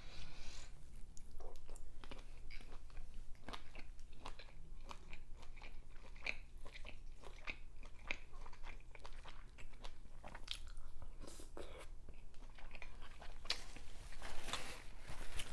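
Close-miked chewing and biting of seafood boil food, with many irregular short wet mouth clicks and smacks and a few crunchy bites. It gets a little louder and busier near the end.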